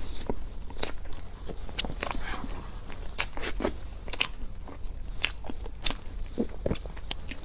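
Close-miked eating: a person chewing soft, creamy food, with wet smacks and sharp mouth clicks coming irregularly, several a second, over a faint steady low hum.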